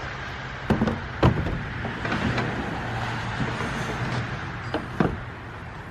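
A few sharp knocks, two close together near the start and two near the end, over a steady low hum and background noise.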